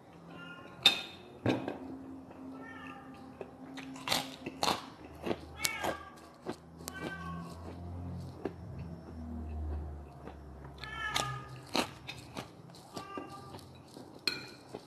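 Metal fork and spoon clinking and scraping against a ceramic plate, with chewing and several short squeaky tones in between.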